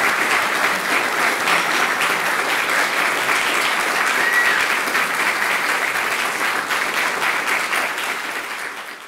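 Audience applauding steadily, a dense patter of many hands clapping that fades out near the end.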